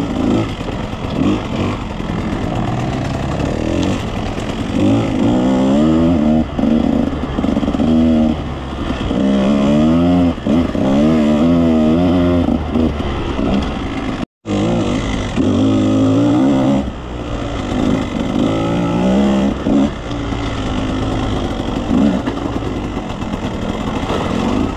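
Two-stroke dirt bike engine being ridden, its pitch rising and falling repeatedly as the throttle is worked. The sound cuts out for an instant a little past halfway.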